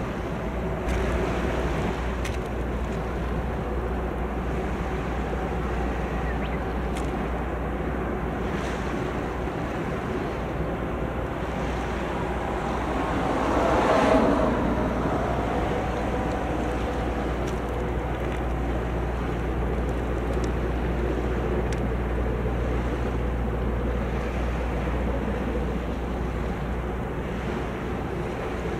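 Steady low rumble of a passing bulk carrier with the wash of water along its hull, wind buffeting the microphone, swelling briefly about halfway through.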